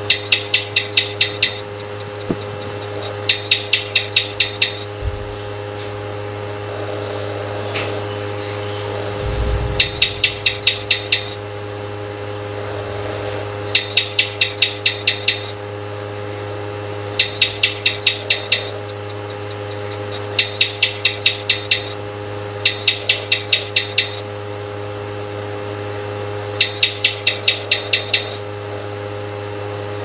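A lizard chirping in repeated runs of six to eight quick, sharp clicks, each run about a second and a half long, coming every few seconds, over a steady electrical hum. There is a single low thump about five seconds in.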